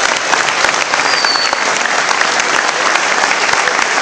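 Audience applauding, a steady loud wash of many hands clapping. A short high whistle is heard about a second in.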